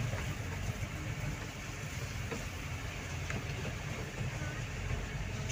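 A car's engine and cabin noise, heard from inside the car while it drives slowly along a rough dirt track: a steady low hum with a couple of faint knocks.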